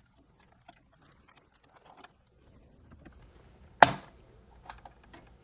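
Faint small clicks of hands working on a CPU cooler's mount, then one sharp, loud snap about four seconds in as the spring-tensioned mounting lets go.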